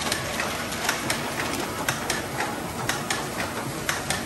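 Automatic capping machine and conveyor of a paint bottling line running: a steady machine noise with sharp, irregular clicks and clacks, about two or three a second, as bottles and caps move through.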